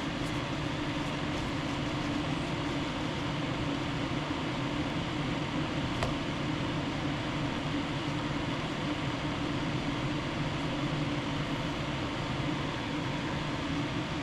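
Steady whirring hum of a running fan, with one faint tick about six seconds in.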